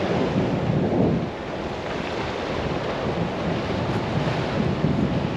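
Sea surf washing against the shore rocks, with wind buffeting the microphone in low rumbling gusts.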